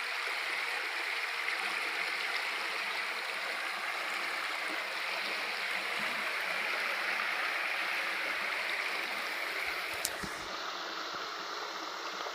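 A shallow river running over rocks, a steady rushing of water. A single brief click comes near the end.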